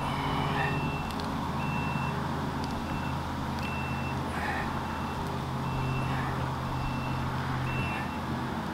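A vehicle's reversing alarm beeping about once a second over a steady low engine drone.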